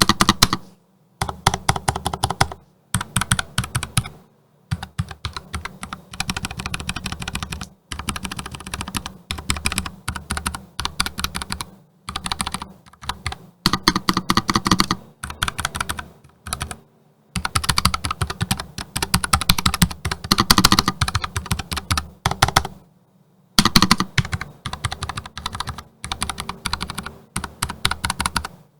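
Typing on a NuPhy Air 75 low-profile mechanical keyboard with Gateron brown tactile switches, heard up close: rapid runs of key clacks lasting a second or two at a time, with brief pauses between them.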